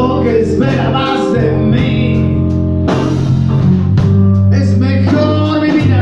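Live blues-rock band playing: electric guitar, bass guitar and drum kit, with a male voice singing.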